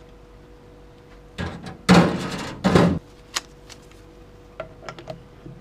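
Metal hand tools clattering and scraping against the transmission case and workbench while the 3/4 accumulator snap ring is removed from a Ford AOD transmission case. The clatter comes about a second and a half in and lasts about a second and a half, followed by one sharp click and a few lighter clicks.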